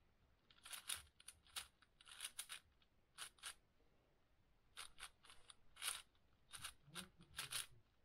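Plastic layers of a 6x6 speed cube being turned, short sharp clicks coming in quick bursts of a few turns with brief pauses between.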